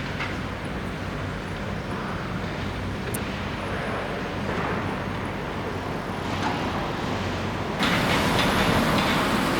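Steady low rumble of heavy construction machinery running, with a noisy hiss. About 8 seconds in, it suddenly gets louder and noisier.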